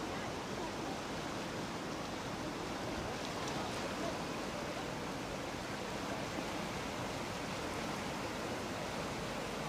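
River in flood: fast, muddy water rushing steadily, a continuous even wash of moving water.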